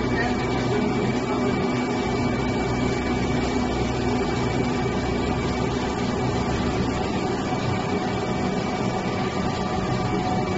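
Screw oil press running steadily while pressing peanuts: a constant motor hum with a thin, steady high tone above it. The low rumble eases about seven seconds in.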